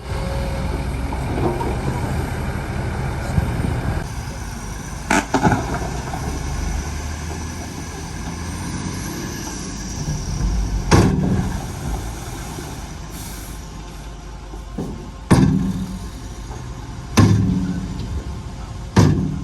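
Heavy earthmoving machinery running with a steady diesel engine rumble, broken by about five loud, sharp knocks at irregular intervals.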